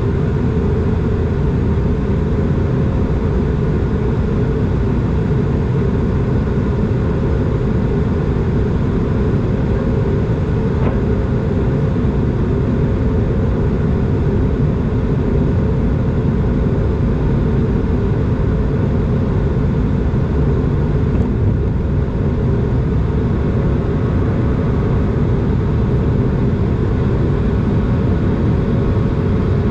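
Steady cabin noise of an Airbus A220 in flight: an even, unbroken rumble of airflow and its Pratt & Whitney PW1500G geared turbofan engines, with a faint steady hum.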